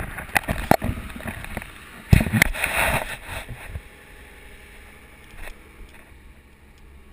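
Bumps and rubbing of an action camera being handled, loudest a little after two seconds in, then a steady low rumble of a boat under way on open water.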